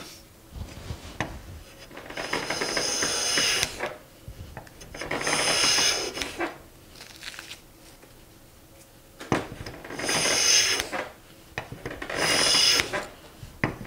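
Harbor Freight No. 33 bench plane shaving the face grain of a poplar board: four planing strokes, each a hiss lasting about a second to a second and a half, with a light knock or two in the pauses as the plane is set back for the next pass.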